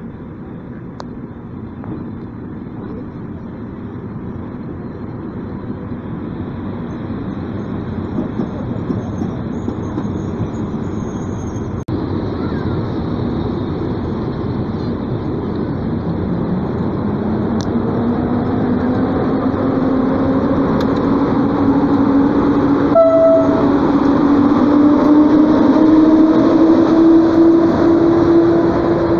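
EP08 electric locomotive and its passenger coaches moving along the platform track, the rumble of wheels on rail growing steadily louder. From about halfway a whine from the locomotive's traction motors rises steadily in pitch as the train gathers speed, then holds. A brief high toot sounds about three-quarters of the way through.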